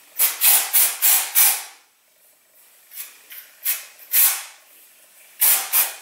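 Batiste dry shampoo aerosol can spraying into the hair roots in short hissing bursts: a quick run of four or five near the start, then several more spaced out, with the can held close to the scalp.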